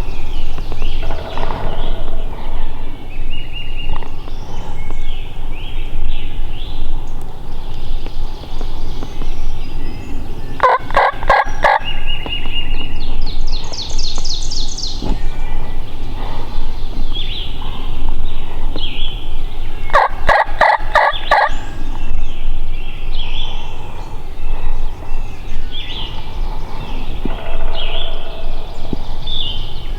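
Wild turkey tom gobbling twice, once about ten seconds in and again about twenty seconds in, each a quick rattling burst, with songbirds chirping throughout.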